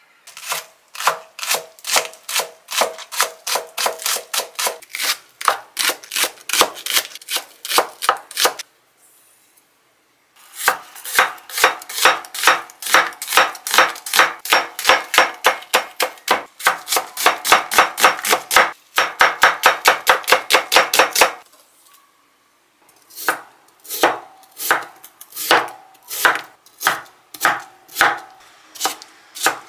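Chef's knife slicing an onion thinly on a cutting board: quick, even chops at about three to five a second, in three runs broken by short pauses, the last run slower.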